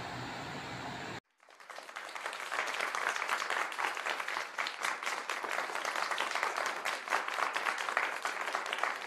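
A crowd applauding, a recorded applause effect that cuts in suddenly about a second in and swells to a steady clapping. Before it, a short stretch of steady low background hum.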